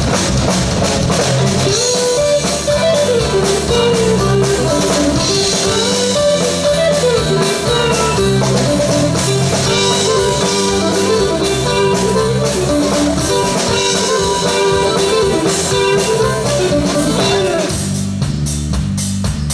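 Live band playing an instrumental break: a guitar solo over bass and a drum kit keeping a steady beat.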